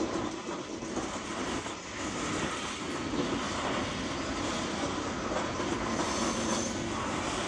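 Loaded coal hopper cars of a slow-moving freight train rolling past, giving a steady noise of wheels on rail.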